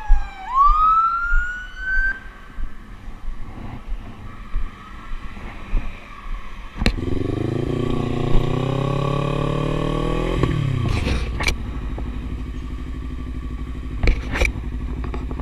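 A police siren wails briefly, its pitch falling then rising again. About seven seconds in, a motorcycle engine pulls away, its pitch climbing steadily for a few seconds before it drops and settles into a steady run as the bike rides on.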